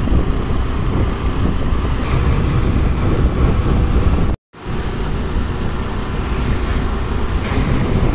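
Wind buffeting the microphone of a moving two-wheeler, with the vehicle's road and engine noise underneath. The sound cuts out for a moment about four and a half seconds in.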